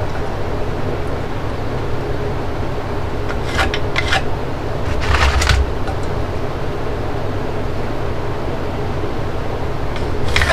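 Steady machine noise, a whir with a faint hum, with a few short sharp sounds around four to five seconds in and once more near the end.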